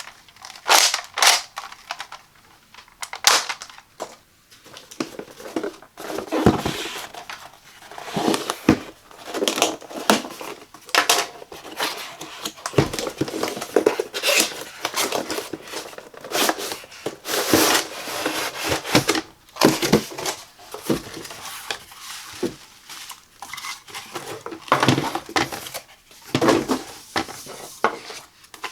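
Nerf blaster packaging being handled and opened by hand: an irregular string of sharp rustles, scrapes and taps with short pauses between them.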